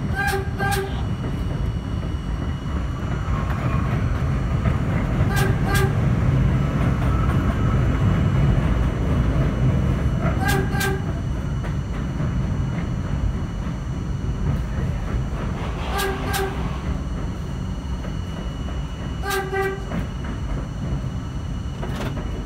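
R42 subway train running on elevated track, its wheels and DC traction motors giving a steady rumble, while a train horn sounds pairs of short blasts, five pairs in all, roughly every five seconds.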